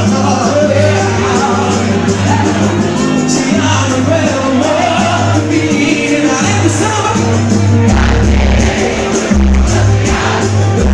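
Live samba band playing with a singer: a steady bass line under the sung melody, the bass moving down to lower notes about eight seconds in.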